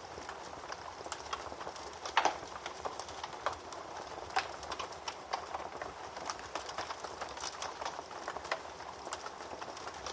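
Wood fire crackling in a fireplace: a steady hiss with many small snaps, and a louder pop about two seconds in.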